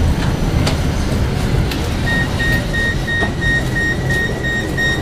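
Low rumble of a tram passing alongside, heard from inside a tram. About two seconds in, a high electronic beep starts repeating about three times a second: the door warning signal of a tram standing at a stop.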